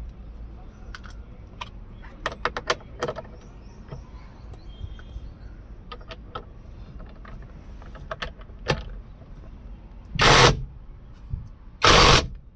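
Scattered light clicks and taps of car steering-column parts being handled and fitted, then two loud bursts of noise, each about half a second long, near the end.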